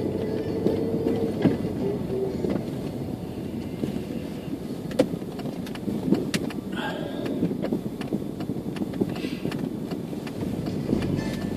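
Car engine and road noise heard from inside the cabin while driving slowly, with a few sharp clicks.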